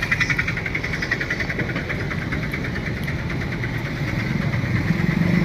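A motor vehicle's engine idling with a fast, even pulse, growing louder and deeper near the end.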